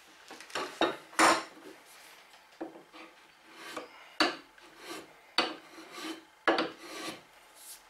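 Finely set block plane taking a series of about a dozen short strokes across the wooden sole of a coffin smoother plane, roughly one or two a second and often in pairs, shaving off high spots to flatten the uneven sole.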